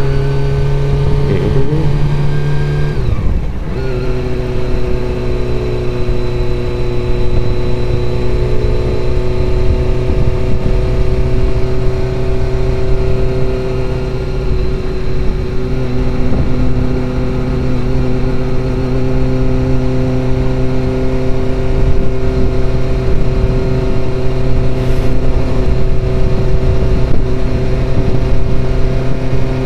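Honda CBR400RR (NC23) 400 cc inline-four motorcycle engine and exhaust running steadily at cruising speed, heard through a helmet camera's bare microphone with wind noise. About three seconds in the engine note dips briefly, then settles again.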